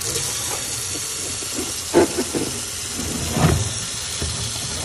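Running tap water pouring steadily into a plastic tub of sea moss in a stainless steel sink, heard as a hiss. There are two wet splashes from the sea moss and water being handled, about two seconds in and again at about three and a half seconds.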